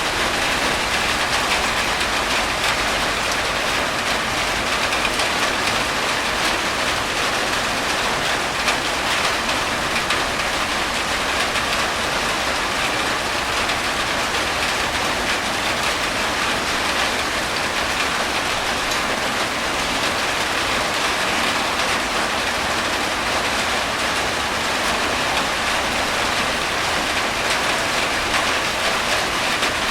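Heavy rain falling in a steady, even hiss of dense drops.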